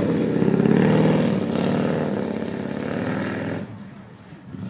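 Hot-rodded Chevrolet pickup's engine revving hard as the truck powers round a dirt turn, its note rising and falling. The engine sound drops away suddenly about three and a half seconds in as the truck pulls off into the distance.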